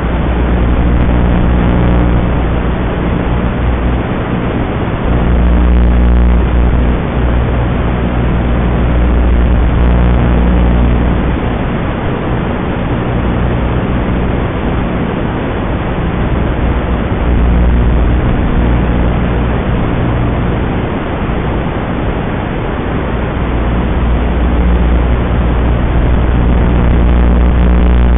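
Small brushless quadcopter motors (2204 2722KV) spinning 5-inch three-blade props, a loud continuous buzz with a low hum that swells and eases several times as the throttle is pushed and pulled back. The sound is thin and narrow, like a low-quality onboard recording.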